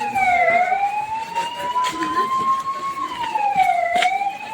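Emergency vehicle siren wailing, its pitch dropping quickly and then climbing slowly, twice over, in cycles of about three and a half seconds.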